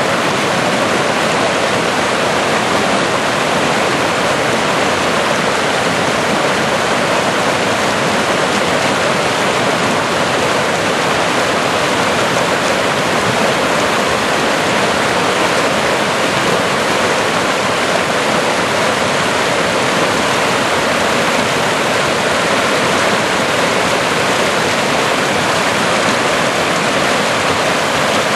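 Swift stream swollen by rain, running in whitewater over and between granite boulders: a loud, steady rush of water.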